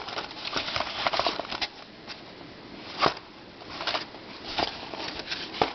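Handling noises from puzzles and their boxes being picked up and moved: a quick run of rustles and clicks, then a few separate sharp clicks and light knocks.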